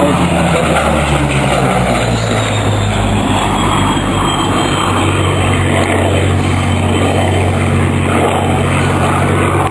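Spitfire Mk IIa's Rolls-Royce Merlin V12 engine on a display pass. The engine note drops in pitch over the first two seconds as the aircraft goes by, then settles into a steady drone.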